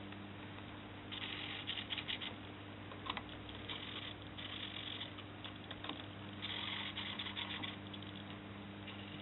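Small hobby servo motors buzzing in several short bursts, each under a second to about a second, as they swing the arms of a model semaphore signal. A steady low hum runs underneath.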